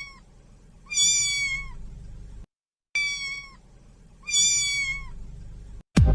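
A cat meowing: high-pitched, drawn-out meows that hold steady and drop in pitch at the end, about four in two pairs with a short pause between the pairs.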